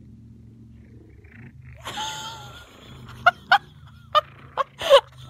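A woman laughing in a run of short, sharp, high-pitched bursts, each falling in pitch, starting about three seconds in. A brief noisy sound comes just before, about two seconds in.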